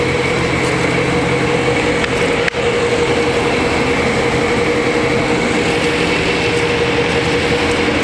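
Steady mechanical drone: a machine running with a constant, even hum that holds one pitch throughout.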